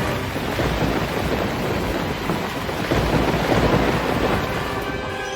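Storm noise: a steady hiss of heavy rain over a low, uneven rumble of thunder.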